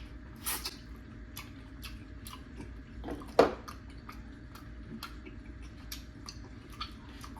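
Close-up chewing of a grilled oyster topped with garlic butter and melted cheese: many small wet mouth clicks, with two louder smacks about half a second in and about three and a half seconds in.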